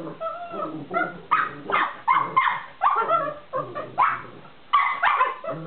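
Small dogs barking and yipping in rough play: a quick run of short, sharp barks, about two a second.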